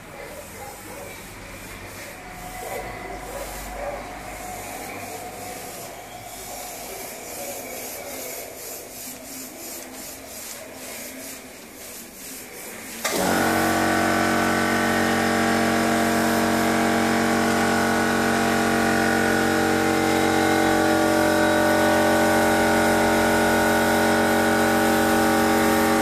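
Faint hiss with rubbing noises, then about halfway through a loud machine hum cuts in abruptly and runs on steadily: several held tones over a hiss, fitting the air compressor that feeds an airbrush kicking on.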